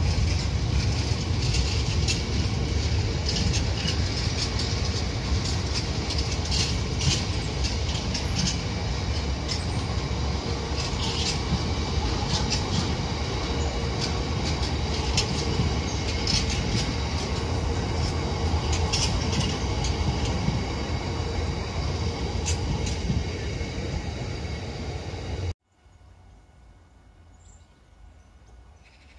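Freight train wagons rolling past: a steady heavy rumble of wheels on the rails with repeated clicks over the rail joints. It cuts off suddenly near the end, leaving only faint background.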